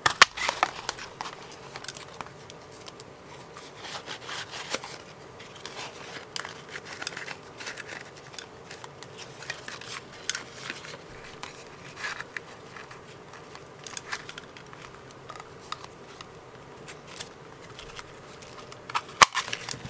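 Paper rustling and sliding against the plastic body of a handheld circle craft punch as a sheet is worked into position, with scattered small clicks and knocks. Sharper clicks come at the very start and about a second before the end.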